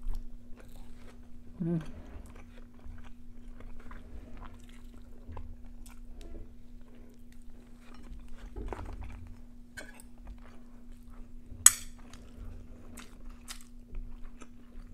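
Close-miked chewing and biting of chicken on the bone, with small crunches and wet mouth clicks, and one sharp click a little before the end.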